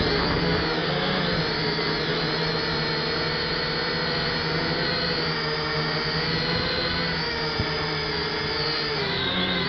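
F183DH quadcopter's motors and propellers whining in flight, several pitches wavering slowly up and down as the motors work to hold the drone steady against strong wind. One faint click comes late on.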